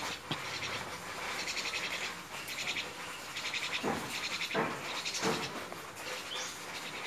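Mynas calling: bursts of fast, harsh chattering, with three louder calls about halfway through.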